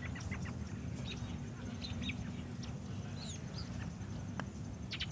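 Birds chirping in short, scattered calls over a low steady rumble: outdoor ambience in the film soundtrack.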